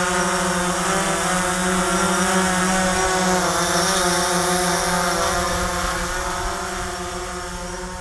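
DJI Phantom 4 quadcopter's propellers buzzing in flight: a steady whine of several tones that wavers in pitch as the drone holds against gusty wind. It grows gradually fainter over the last few seconds, with wind rumble on the microphone underneath.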